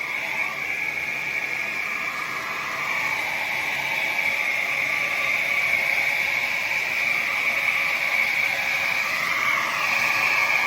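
Slopehill 1800W ionic hair dryer running: a steady rush of air with a high-pitched motor whine, getting a little louder about three seconds in.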